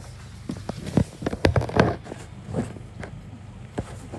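Bus heard from inside the passenger cabin while driving: a steady low engine drone. Between about one and two and a half seconds in, a cluster of loud knocks and rattles stands out, with one more knock near the end.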